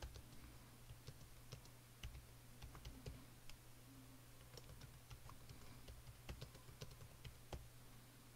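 Faint typing on a computer keyboard: irregular key clicks, over a steady low hum.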